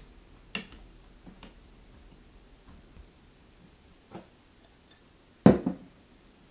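A few scattered clicks and light knocks of kitchen utensils and containers being handled, with one heavier knock about five and a half seconds in.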